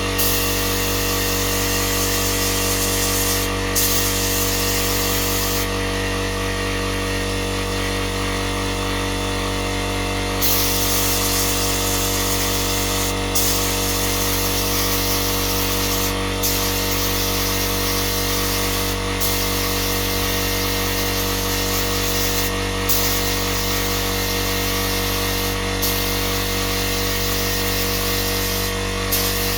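Handheld power tool running continuously, a steady motor hum with hiss. The high hiss drops out briefly every few seconds and for a longer stretch near the first third.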